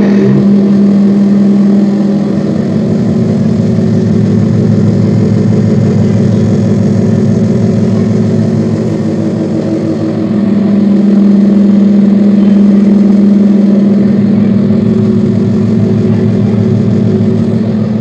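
Washing machine's electric motor running with a loud, steady hum. The drive belt is loose, so the motor runs without driving the machine properly.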